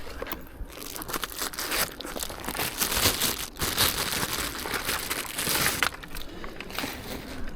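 Crinkly rustling and crackling of something being handled as a perch is readied for weighing on a scale. It grows busiest in the middle.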